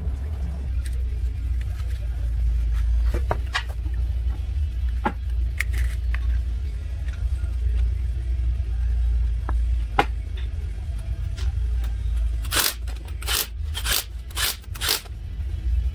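Scattered light metallic clicks of lug nuts being threaded onto a wheel stud by hand, then an impact wrench run in about six short bursts in quick succession near the end, snugging the lug nuts.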